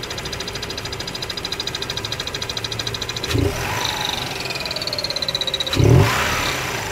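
Mazda RX-8's twin-rotor Wankel (Renesis) engine idling with a fast, even pulsing and a high thin whistle from the engine bay around the alternator, a whistle that goes away when the clutch is pressed. About three seconds in and again near the end the engine is blipped briefly, and a whine falls in pitch as the revs drop back each time.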